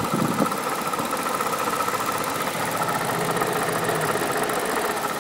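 BMW N62B48 4.8-litre V8 idling steadily with a rapid clicking from its failed water pump. A short thump sounds a fraction of a second in.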